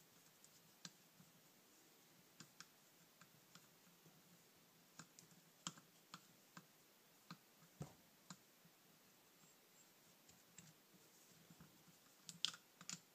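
Faint, irregular small metal clicks and ticks of a screwdriver working the tiny screws of a 1979 Honda CB650 carburetor, with a few clicks coming close together near the end.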